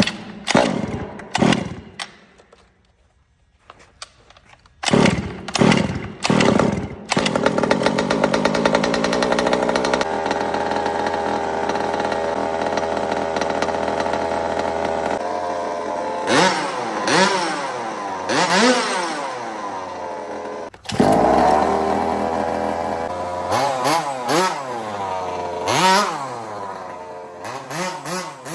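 Small two-stroke gas engine of an HPI Baja 5T 1/5-scale RC truck. It starts about five seconds in and runs steadily, then revs up and down repeatedly in the second half.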